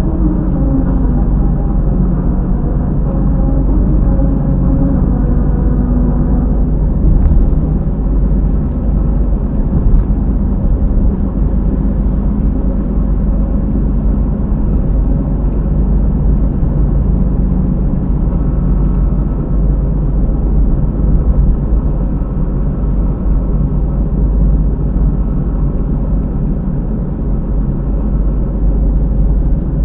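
A Honda driving, heard inside the cabin: steady low tyre and road drone with a noise from near the rear tyre that the uploader puts down to a failing wheel hub bearing. For the first several seconds a tune of stepped tones plays from the tyres running over melody-road grooves.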